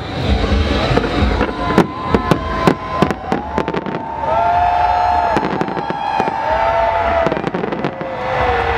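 Aerial fireworks going off in a rapid run of bangs and crackles, densest in the first few seconds. Through the middle, overlapping pitched tones rise and fall over a steady low rumble.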